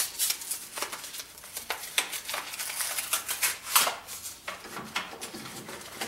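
Irregular rustling, crinkling and light clicks of small items being handled, with no steady rhythm.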